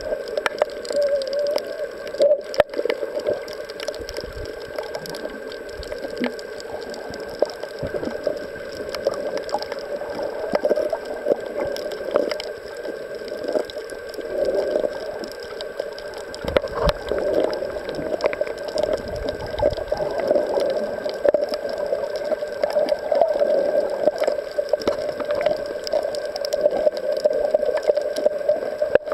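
Underwater sound picked up by a camera while snorkeling over a coral reef: a muffled, steady hum with many small crackling clicks scattered through it.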